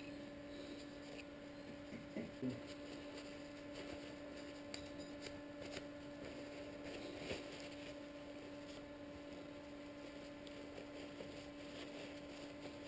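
A steady low electrical hum under faint scrapes and light clicks as an aluminium clutch lever is brushed and then wiped with a rag.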